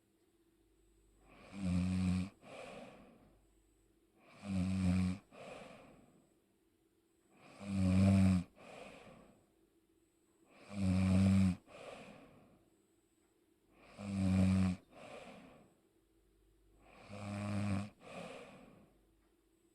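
A person snoring in sleep at a steady rhythm: six loud, rattling snores about three seconds apart, each followed by a softer, shorter breath.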